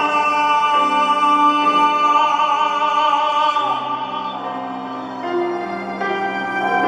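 A male singer holding the last note of the chorus of a ballad over instrumental accompaniment; the note wavers with vibrato and ends a little past halfway, leaving the accompaniment playing sustained chords alone.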